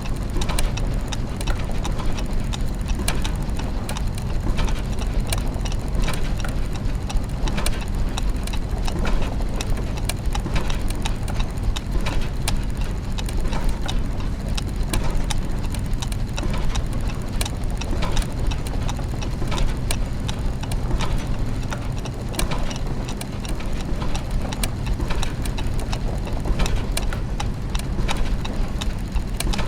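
Layered clockwork and gear mechanisms ticking, clicking and ratcheting without pause, the ticks irregular and overlapping over a steady low mechanical hum.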